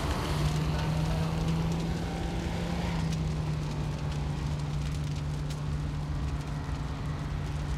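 Firefighting at a burning building: a steady low hum throughout, water hissing from a fire hose over the first three seconds, then scattered crackles from the flames.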